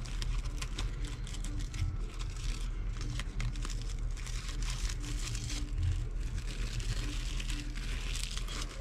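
Ribbon loops of a handmade bow, satin and metallic ribbon, rustling and crinkling irregularly as hands fluff and adjust them.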